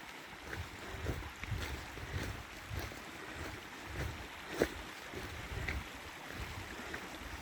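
Footsteps on wet, muddy ground, about two steps a second, with wind buffeting the microphone. A single sharp click about halfway through.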